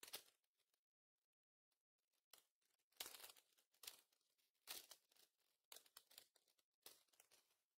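Pokémon booster pack's foil wrapper being torn open and crinkled: about seven quiet, short rustling bursts.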